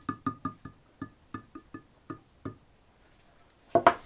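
Thumb-pump oil can clicking about a dozen times in quick, uneven succession as it squirts drops of raw linseed oil, each click with a short metallic ring. Near the end comes one louder knock as the can is set down on the wooden bench.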